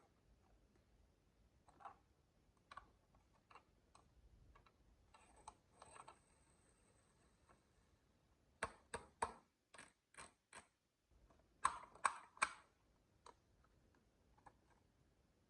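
Marbles clicking and clacking on a wooden marble run: scattered single clicks, then two quick flurries of several clicks in a row past the middle.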